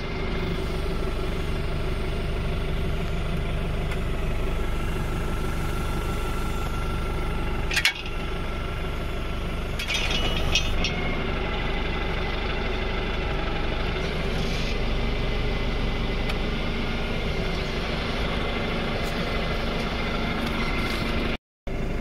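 Tractor engine running steadily while it drives a rotary hay tedder turning cut hay. A sharp knock comes about eight seconds in, and a short rattle follows about two seconds later.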